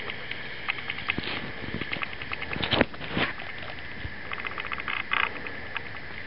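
A night chorus of rapid, high-pitched clicking call trains repeating throughout, with two louder rustling scrapes a little before the middle.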